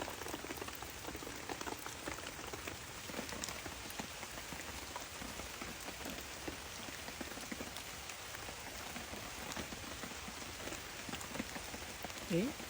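Steady rain pattering, with many small scattered drop ticks.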